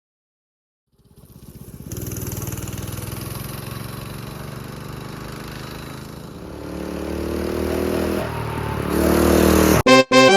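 Mini bike's 212cc Hemi single-cylinder engine running, starting about a second in and climbing in pitch as it is revved over the second half. It cuts off abruptly near the end as music comes in.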